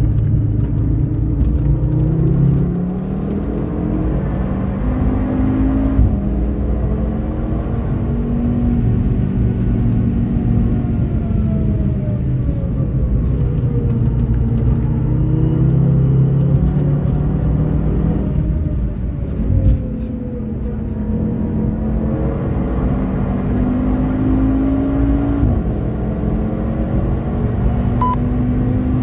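Audi TT RS 8J's turbocharged five-cylinder engine under hard acceleration, heard inside the cabin, its revs rising and falling through the corners with a sharp drop in pitch near the end.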